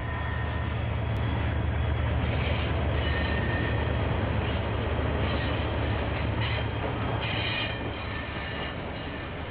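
Two KiwiRail diesel locomotives pass at the head of a container freight train, their engines running with a deep steady rumble that swells as they go by and eases near the end. Intermittent high squeals come from the wheels on the rails.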